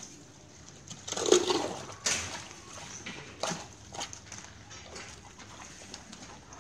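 Long-handled hand tools scraping and knocking on a concrete drain and the road surface as debris is cleared, with a loud rasping scrape about a second in, a sharp knock at about two seconds, and lighter knocks and scrapes after.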